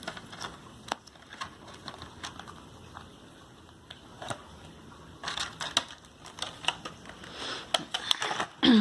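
Small plastic doll accessories and their packaging being handled: scattered clicks and crinkling, busier in the second half. A short falling vocal sound comes at the very end.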